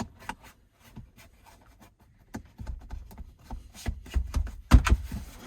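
Plastic console trim piece being handled and fitted by hand: scattered clicks, then rubbing and knocking as it is worked into place. It ends in a firm knock near the end as it seats.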